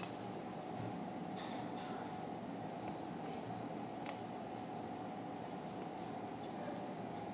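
A few sharp metallic clicks of surgical instruments, a needle holder and forceps, as skin sutures are placed, the loudest about four seconds in. Behind them runs a steady low hum.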